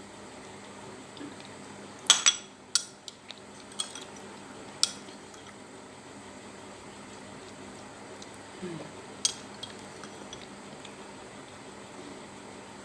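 Spoon clinking against a dish as homemade honey-and-lemon syrup is scooped up and eaten: a few sharp clinks, most between two and five seconds in and one more near nine seconds, with a brief hum of voice just before that last one.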